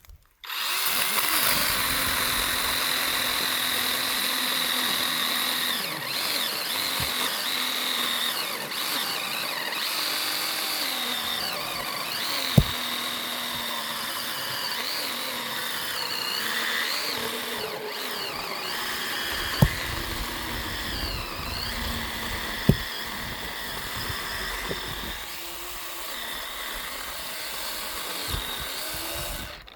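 Chainsaw running under load while cutting firewood logs, its pitch dipping and recovering as it bites into the wood. Three sharp knocks sound during the cut.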